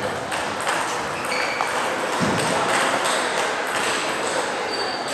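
Table tennis play: the plastic ball clicking sharply and rapidly off bats and the table, with a dull low thud about two seconds in.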